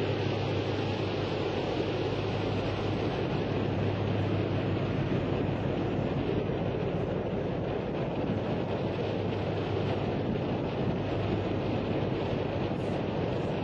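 Wind blowing on the microphone aboard a ship underway, over a steady low hum from the vessel and the rush of the sea.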